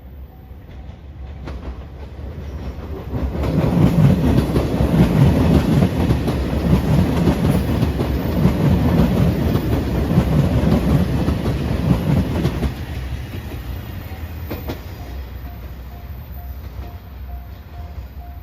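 JR Shikoku 2700 series diesel express train passing a level crossing: its running noise builds and is loud for about nine seconds from around three and a half seconds in, then fades away. The crossing bell's repeating tone rings at the start and again near the end.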